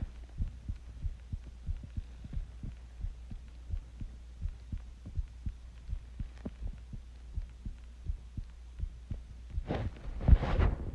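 A person's heartbeat: a steady run of soft, low thumps over a constant deep hum, with a louder, noisier stretch near the end.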